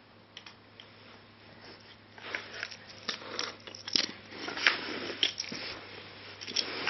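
Wooden shape-stacking toy pieces clacking and knocking against each other and the peg board as a toddler pulls them off the pegs, an irregular run of clicks and knocks starting about two seconds in.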